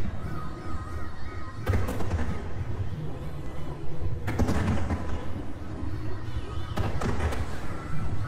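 Aerial fireworks display: a continuous low rumble of shell bursts, with three sharp, loud bangs standing out, roughly two and a half seconds apart.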